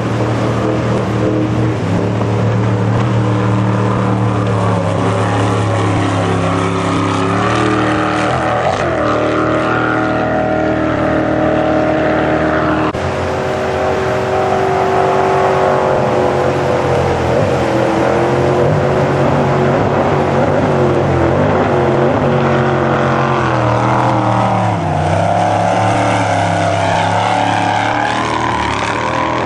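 Racing jet boat's engine running hard, its pitch rising and falling several times as the throttle is worked, with a sudden change about halfway through.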